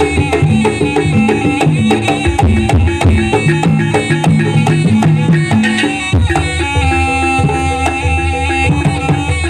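Live Javanese barongan dance music: hand-drum strokes driving a rhythm under repeated pitched notes of an ensemble, and from about six seconds in some longer held notes join.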